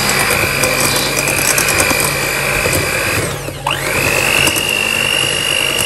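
Electric mixer whisking mashed potatoes: a steady motor whine that drops sharply in pitch about three and a half seconds in, then climbs back up to speed.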